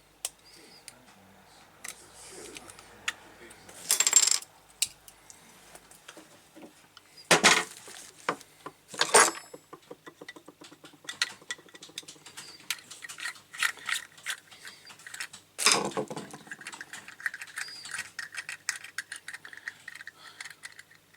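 Small metal clinks, scrapes and knocks of a penknife blade and tools working at a tap handle to prise off its cap. A few sharper knocks stand out, and a run of rapid small clicks fills the second half.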